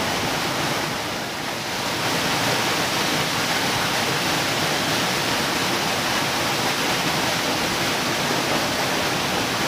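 Small waterfall pouring into a pool: a steady rush of falling water.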